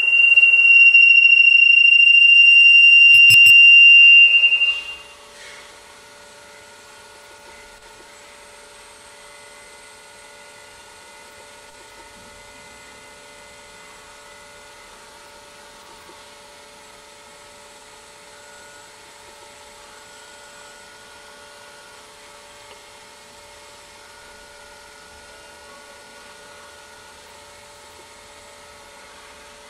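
Acoustic feedback (Larsen effect) from a microphone held near a loudspeaker cone by a robotic arm: a loud, steady, high-pitched tone that cuts off about four and a half seconds in as the microphone is pulled back from the cone. A faint steady hum of several tones from the feedback system continues after that.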